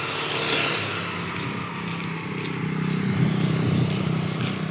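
A motor vehicle's engine running with road noise; the engine hum grows louder about halfway through.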